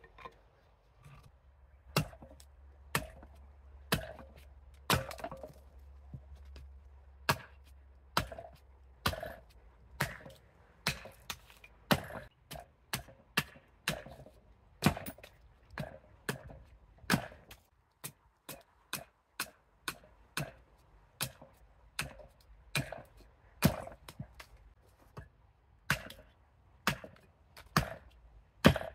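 Fadir Tools 860 g carving axe chopping an ornamental cherry spoon blank that is braced on a chopping block: a run of sharp wooden chops, about one to two a second and uneven in strength, with a brief pause near the middle.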